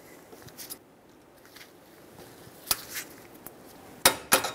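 Metal cutters working a steel cotter pin through the axle nut cap: mostly quiet, with a few sharp metallic clicks, the loudest two in quick succession near the end.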